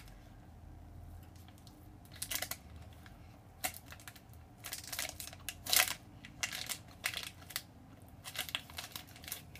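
A person chewing a bite of a soft date-and-nut Larabar close to the microphone. Irregular mouth clicks and smacks start about two seconds in and go on at uneven intervals.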